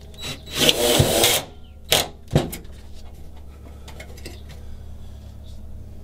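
Cordless drill briefly driving a self-drilling screw into a steel panel, a loud burst lasting under a second, followed by two short sharp knocks. A steady low hum runs underneath.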